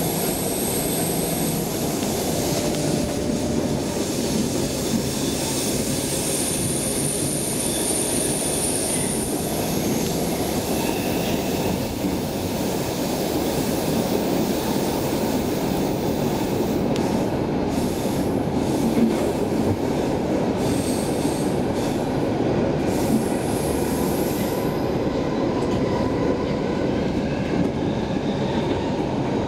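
Stockholm metro C6 car heard from inside while running: a steady rumble of wheels on the track, with thin high-pitched wheel squeal near the start and again about a quarter of the way in.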